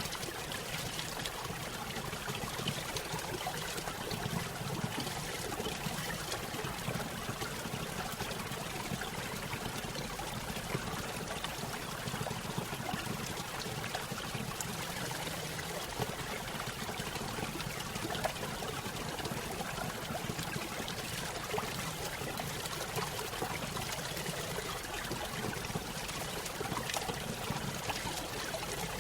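Small stream splashing over a little waterfall: a steady trickling and pouring of water, with fine splashes throughout.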